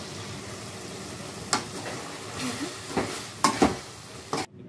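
Leafy spinach and tomato curry simmering with a steady sizzle in an aluminium kadai, with a slotted metal spoon knocking and scraping against the pan about four times as it is stirred. The sound cuts off abruptly just before the end.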